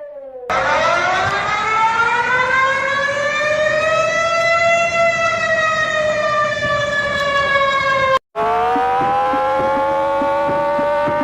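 Emergency alert siren: one loud wail climbs slowly in pitch and eases back down, then cuts off abruptly about eight seconds in. A second siren tone follows, rising and then holding steady, with faint ticking under it.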